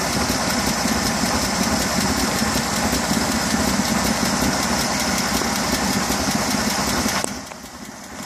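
1955 Fargo truck's flathead straight-six with twin carburettors idling steadily through stock mufflers. About seven seconds in the sound drops away sharply for about a second, then comes back.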